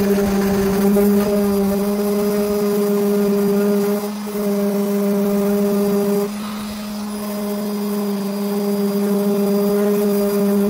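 Handheld sander running steadily against a car's lower door panel, sanding the paint down to bare metal. It gives a steady hum, easing briefly about four seconds in and dropping for about a second just after six seconds.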